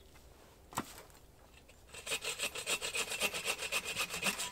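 Hand saw cutting a dead fallen branch with fast, even back-and-forth strokes, about eight a second, starting about two seconds in. A single sharp crack comes about a second in, before the sawing.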